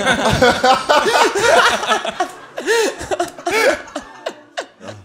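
Men laughing together in hearty, overlapping bursts, dying away near the end.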